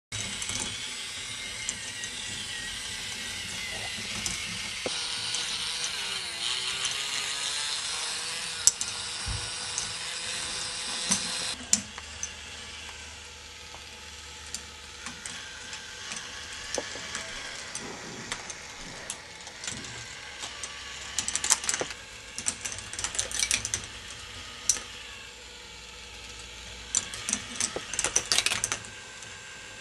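K'NEX ball machine running: small battery-driven lift motors whir through plastic gears and chains while balls click and rattle along plastic track. The whirring is louder for the first dozen seconds and drops suddenly, after which quick runs of clicking come in bunches.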